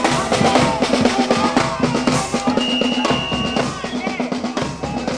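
Street marching drum band playing a dense, driving groove on bass drums and snare drums, with a steady held tone underneath and a short high held tone about three seconds in.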